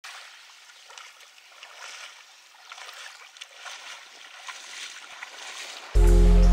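Faint water ambience, a soft even wash with light splashes and small ticks. Loud background music cuts in abruptly near the end.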